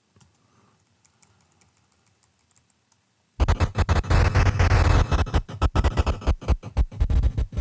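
Faint clicks of a computer mouse and keyboard, then about three and a half seconds in a loud, choppy stutter of audio fragments: sound-design material being scrubbed through in an audio editor, chopped into rapid bits that break up toward the end.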